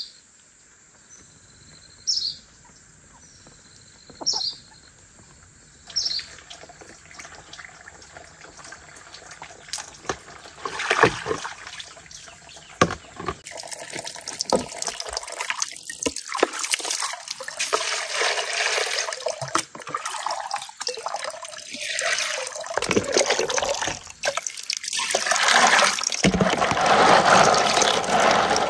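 Water poured and splashed in plastic tubs, building to steady sloshing near the end as hands swish a red plastic basket of small dark items in a tub of water. In the first few seconds a short high chirp repeats about every two seconds.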